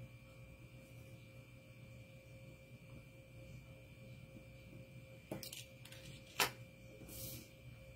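Faint steady electrical hum, with two small sharp taps a little past the middle and a brief soft scrape near the end, from a plastic paste applicator and an adhesive stencil transfer being worked by hand on a board.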